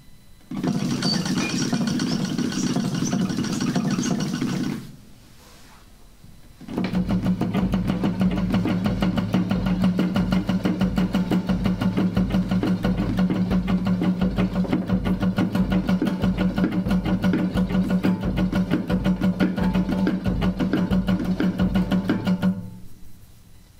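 Acoustic guitar strummed in a very fast, even tremolo on one unchanging chord, almost machine-like. A short burst, a pause of about two seconds, then a long stretch that cuts off sharply near the end.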